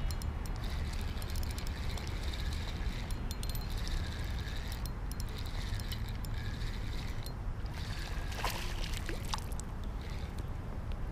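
Water sloshing and gurgling around an inflatable kayak, over a steady low rumble, with a few sharp clicks near the end.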